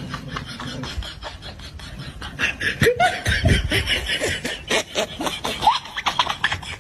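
People laughing, with rapid bursts of laughter starting about two and a half seconds in.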